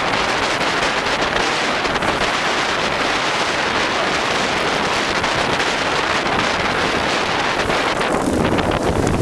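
Wind buffeting the microphone on a moving boat, a loud, steady rushing noise with the sound of the boat under way mixed in.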